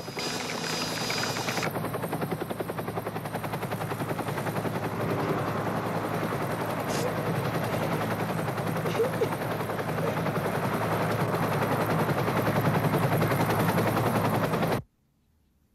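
Helicopter rotor chopping overhead in a fast, steady beat, growing louder, then cutting off abruptly near the end.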